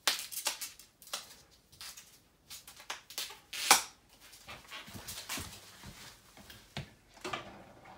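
Bike parts being handled in their packaging: rustling foam and plastic wrap, light knocks and footsteps, with one sharp, loud sound about three and a half seconds in.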